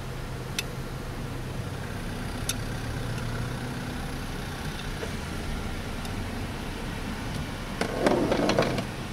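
Vehicle engine idling with a steady low hum, with a couple of sharp clicks and a brief louder burst of noise about eight seconds in.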